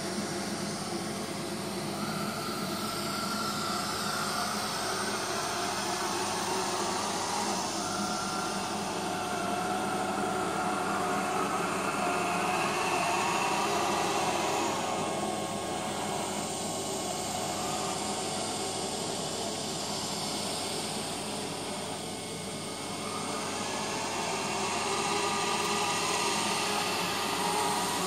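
Neato robot vacuum running on carpet in spot cleaning mode: a steady whir of its suction and brush with a constant hum. It gently swells and fades as the robot crisscrosses the spot.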